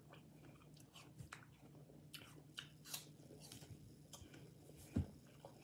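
Faint crunching and chewing of raw apple slices, a scatter of short crisp clicks, with one soft thump about five seconds in.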